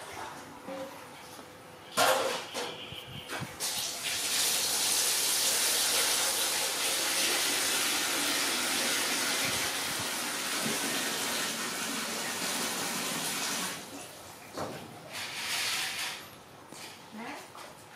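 Water running steadily with a hiss, starting about four seconds in and cutting off about ten seconds later, with a shorter gush a little after. A sharp knock sounds about two seconds in.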